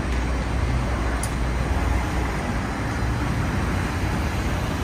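Steady city street traffic noise: cars and taxis running past with a low rumble, and one brief high tick about a second in.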